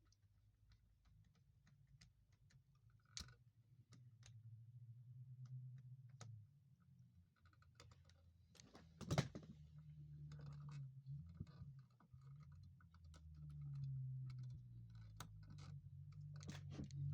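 Scattered faint clicks and taps of small objects being handled, with one louder knock about nine seconds in, over a low hum.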